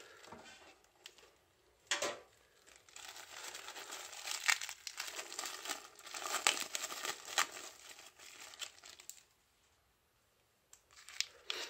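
Clear plastic cellophane wrapping being torn open and crinkled off a stack of trading cards: a sharp rip about two seconds in, then several seconds of crackly crinkling that stops, with a few more crinkles near the end.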